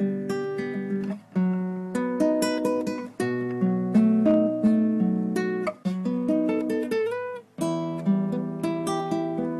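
Background music: an acoustic guitar playing plucked notes and chords, with short breaks between phrases.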